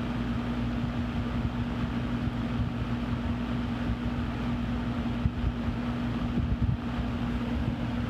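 Vintage Eskimo model 2020 20-inch box fan running on high: a steady rush of air over a constant low electric-motor hum.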